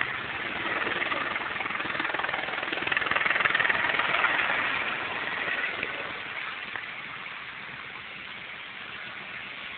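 Firefighting helicopter flying past. Its steady engine and rotor noise grows louder to a peak about three to four seconds in, then fades as it moves away.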